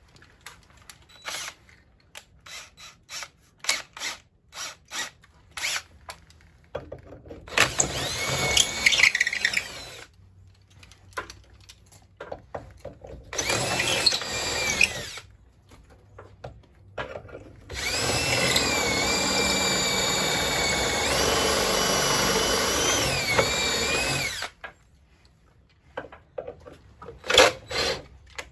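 Cordless drill with a 13/32" bit boring bolt holes through a wooden roof rafter, in three runs. The last and longest run lasts about six seconds, and its whine dips and rises as the bit loads up. Before the drilling come a series of light knocks and clicks.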